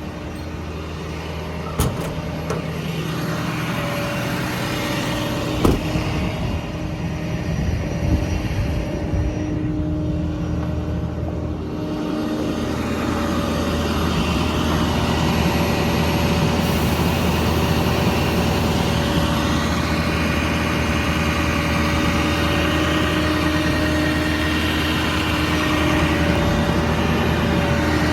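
Engine on a diesel service truck running steadily at idle, with two sharp knocks in the first six seconds. It runs a little louder from about 12 seconds in.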